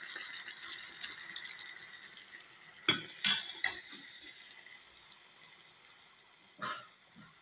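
Chicken curry sizzling in a metal kadai, the hiss fading after the first few seconds. A metal ladle clinks against the pan three times in quick succession about three seconds in, and once more near the end.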